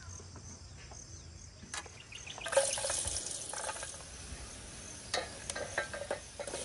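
Potatoes frying in oil in a pan, sizzling, with a utensil stirring and clicking against the pan. The sizzle gets louder about two and a half seconds in.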